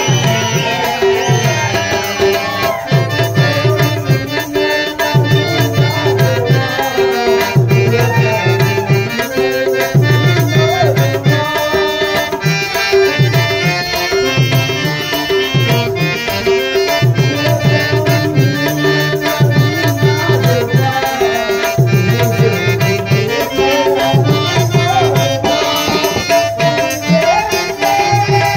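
Indian dance music with a tabla-led drum rhythm in repeating phrases under a melody line, accompanying a stage dance.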